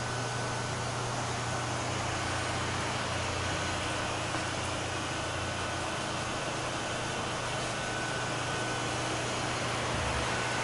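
Steady mechanical hum with a constant hiss and a faint high whine, unchanging throughout.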